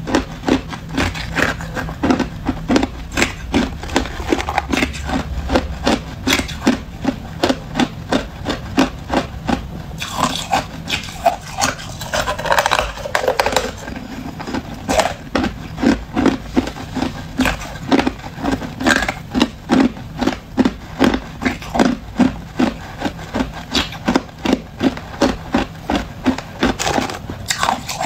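Hard clear ice being bitten and chewed, in steady rhythmic crunches about two a second, with a short break in the crunching about twelve seconds in.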